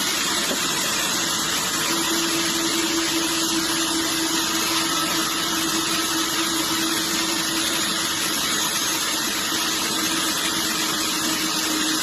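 Sawmill machinery running steadily, with a constant engine-like drone and a steady whine that comes in about two seconds in.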